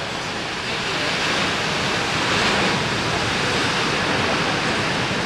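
Ocean surf breaking and washing up the shore: a steady rush that swells about a second in and is loudest around the middle.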